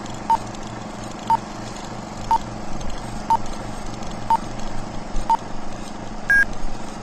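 Countdown sound effect: six short beeps at one pitch, one a second, then a single higher-pitched beep, over a steady hum.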